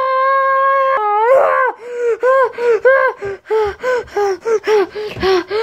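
A high-pitched voice holds a long, steady scream until about a second in, then breaks into a run of short, gasping cries, about three a second.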